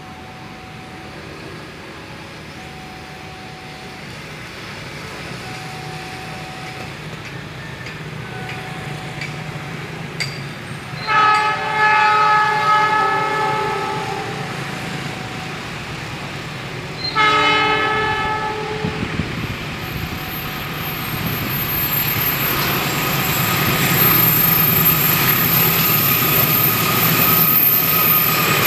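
Indonesian diesel freight train approaching on a curve: two long blasts of the locomotive's horn, a chord of several tones, the first about three seconds and the second about two. The rumble of the locomotive and wagons then builds as it draws level, with a thin high wheel squeal from the curved track.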